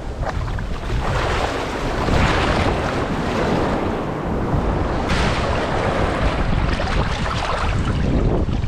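Sea waves washing onto the shore with a loud, surging rush, swelling about a second in, with wind buffeting the microphone.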